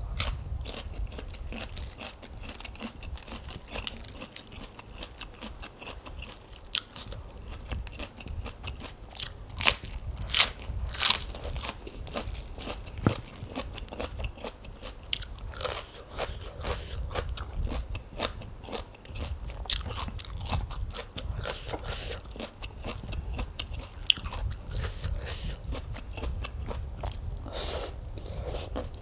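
Close-miked biting and chewing of crisp raw cabbage leaves and spicy rice-noodle salad: a run of sharp crunches with chewing between them, the loudest crunches about ten seconds in.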